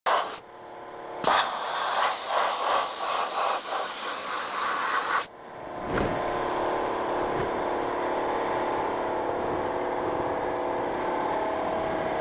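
Harbor Freight sandblaster blasting grit against a truck cab's steel floor: a loud hiss for about four seconds that cuts off suddenly. Once the blasting stops, the air compressor feeding it is heard running steadily.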